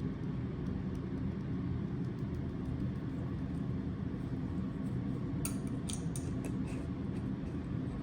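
Steady low mechanical hum, with a few light clicks and rattles about five and a half to six and a half seconds in as seasoning and the pan are handled.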